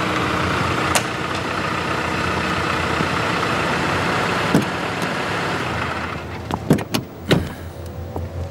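A Toyota SUV's engine running as it rolls up, a steady sound that fades about six seconds in. A few sharp knocks follow, including a car door being shut.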